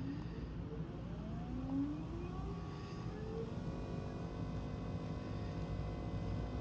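Watersnake 24 electric trolling motor, run through a PWM speed controller, whining higher and higher as the controller is turned up. After about three and a half seconds it holds a steady pitch at full speed.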